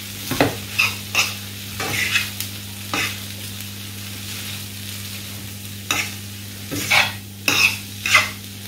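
A fork stirring and tossing instant noodles with chicken and carrot in a nonstick frying pan, scraping against the pan in irregular strokes over a low sizzle. The strokes thin out for a few seconds in the middle, then pick up again.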